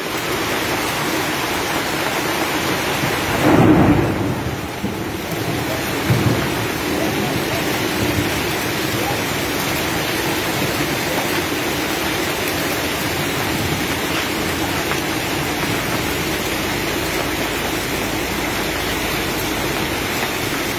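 Heavy rain mixed with hail pelting steadily on the street, car roofs and stall awnings. A loud low rumble rises above it for about a second, three or four seconds in.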